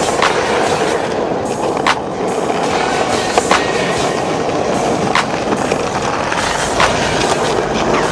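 Skateboard wheels rolling over pavement: a steady rumble, with a sharp click about every second and a half.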